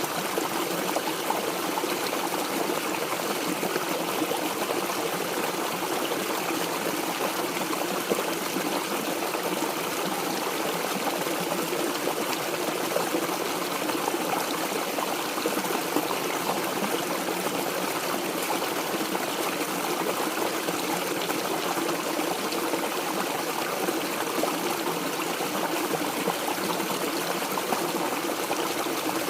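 Mountain stream running and trickling, a steady even rush of flowing water.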